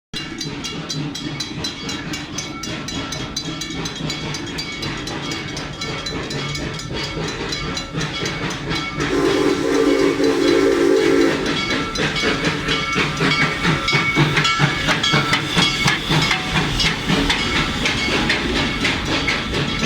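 Serengeti Express park train going by, its wheels clicking steadily over the rails. About nine seconds in its whistle sounds once, a chord of several tones lasting about two seconds.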